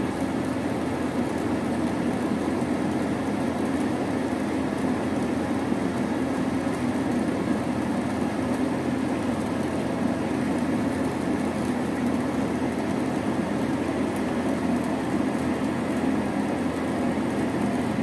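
Gas furnace's newly replaced inducer (draft) motor running with a steady hum during the start-up sequence, drawing air through the burner chamber while the igniter heats up before the burners light.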